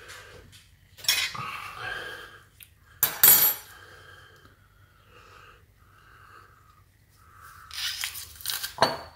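Metal garlic press crushing garlic cloves over a ceramic bowl, with scraping and clinks of metal against the bowl. The sharpest, loudest clack comes about three seconds in.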